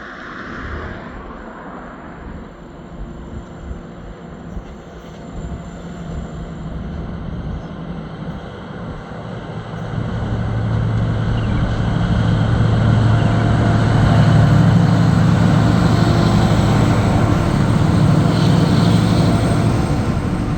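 Two TasRail TR class diesel-electric locomotives running at the head of a freight train. Their low engine drone grows louder from about halfway through and then stays loud and steady.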